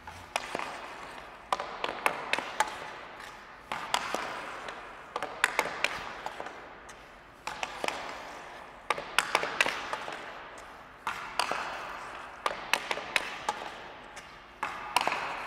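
Hockey stick blade tapping and dragging a puck across synthetic ice during stickhandling. Clusters of sharp clacks come every second or two, each followed by a scraping slide that fades.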